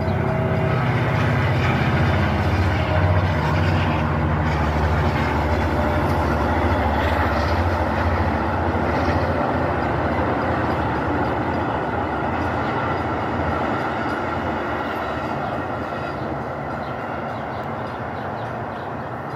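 Metra commuter train passing, with a low drone loudest in the first several seconds, then the steady rolling noise of the passenger cars slowly fading toward the end.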